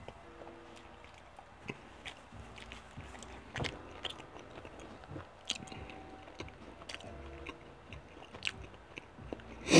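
A person chewing a mouthful of pizza close to the microphone: soft wet mouth sounds with scattered small clicks. There is a sharper, louder tap right at the end.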